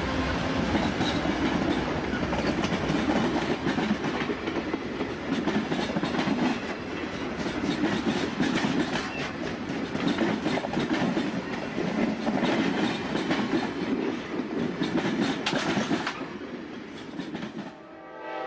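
Amtrak passenger train of bi-level Superliner cars passing close by: a steady rumble of the rolling cars with repeated clicks of wheels over rail joints. Near the end the train noise cuts off and a distant train horn begins to sound.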